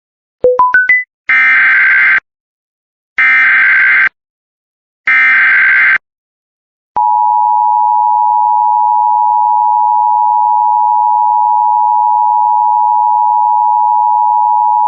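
Emergency Alert System tones: four quick rising beeps, then the SAME digital header, three one-second bursts of screeching data that encode the alert, then the steady two-tone EAS attention signal held for about eight seconds.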